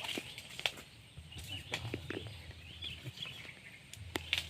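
Small birds chirping repeatedly in quick, short calls, with a few sharp clicks scattered among them and a low steady hum underneath.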